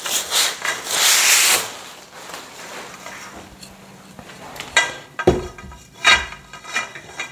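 Packing wrap rustling and tearing as it is pulled off the steel bed frame pieces in the first second and a half, then a few sharp metallic clanks with a short ring as the powder-coated steel parts knock together, from about five seconds in.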